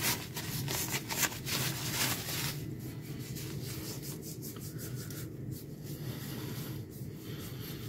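A cloth rubbing polishing paste over a metal surface in quick back-and-forth strokes. The strokes are brisker for the first two and a half seconds, then softer and steadier.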